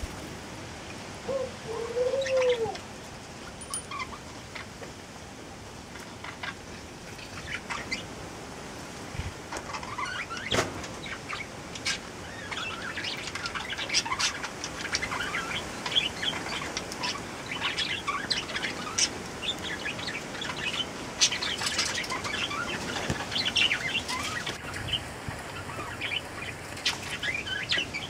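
Ringneck doves feeding: a flurry of wing flaps at the start, a short low coo about two seconds in, then many light beak taps and clicks as they peck at the food in a glass bowl, with high bird chirps throughout.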